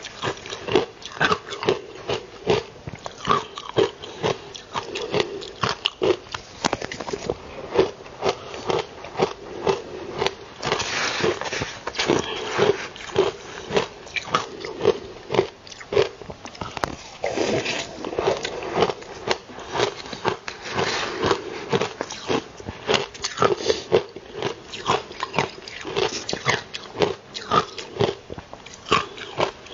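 Frozen ice being bitten and crunched in the mouth: a fast, uneven run of sharp cracks and crunches.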